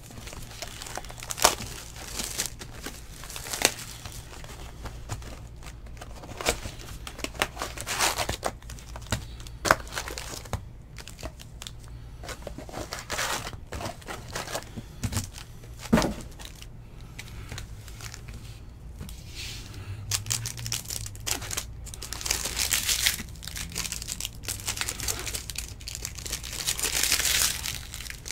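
Plastic wrap and foil trading-card pack wrappers crinkling and tearing as a hobby box of baseball cards is unwrapped and its packs are handled and ripped open. Sharp taps and clicks from handling the cardboard box come through the first part. The crinkling turns denser and steadier over the last several seconds as a pack is torn open.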